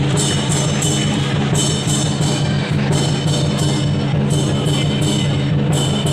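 Lion dance percussion: a large drum beating with cymbals clashing in a steady rhythm, about two to three clashes a second.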